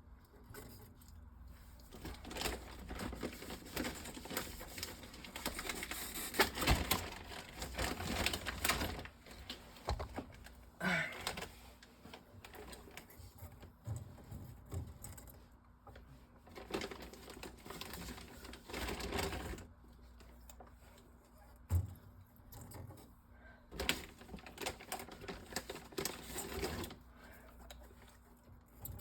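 Plastic water bottles being handled and set onto a fridge shelf: clattering, rustling and knocking plastic in several stretches of a few seconds each, with single knocks in between.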